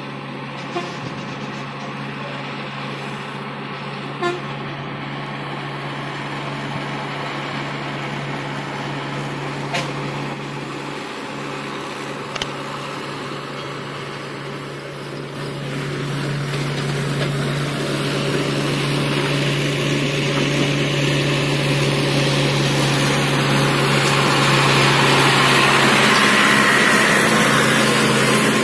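Diesel engines of a tractor towing a water-tank trailer and of a lorry running through a hairpin bend: a steady engine drone that grows louder over the second half as the tractor draws close. A few short sharp sounds come in the first half.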